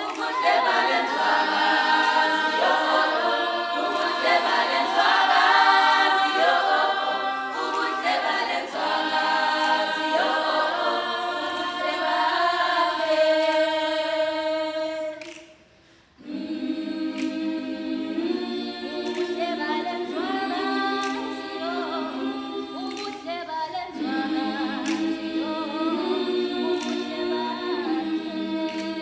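A girls' a cappella choir singing unaccompanied in several-part harmony. The voices break off for a moment just past halfway, then come back in with held chords.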